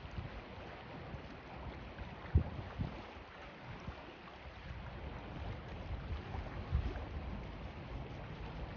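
Wind buffeting the microphone in irregular low rumbles and thumps, the sharpest about two and a half seconds in, over a steady wash of choppy water.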